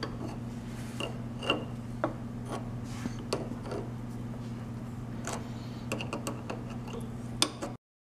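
Scattered clicks and creaks of a tap being turned by hand with a wrench, cutting a 1/2-20 thread in a steel part held in a lathe, over a steady low hum. The sound cuts off suddenly just before the end.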